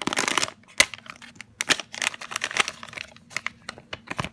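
A Care Bears scented-figure blind bag being torn open and crinkled by hand: a quick, irregular run of sharp crackles and rustles, busiest at the start.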